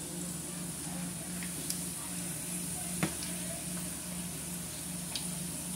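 Omena fish frying in oil in a small pan, a steady light sizzle, with a few sharp clicks as a silicone spatula touches the pan to stir them; the loudest click comes about three seconds in. A low pulsing hum runs underneath.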